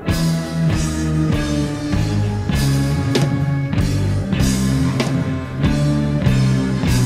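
Rock music with guitar, a bass line moving in steps and a drum beat.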